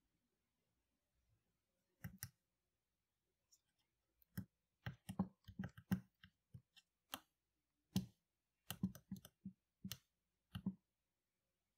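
Small tactile push buttons on an XH-W1209 digital thermostat module clicking as a finger presses them, a pair of clicks about two seconds in, then quick, irregular runs of presses while the temperature setting is stepped up.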